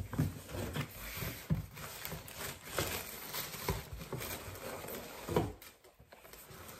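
Cardboard shoebox lid lifted off and tissue paper rustling and crinkling as new trainers are unboxed, with a few light knocks of cardboard; it goes quiet about five and a half seconds in.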